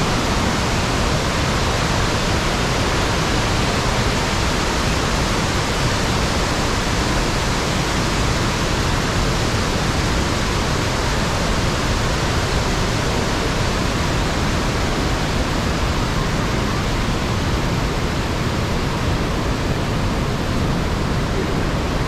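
Iguazú Falls: the steady, loud rush of the falling water and the white-water rapids below.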